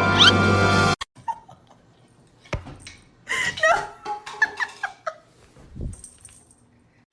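Background music cuts off about a second in. After a click, an animal gives a run of short, high, wavering vocal sounds in the middle, then a fainter one.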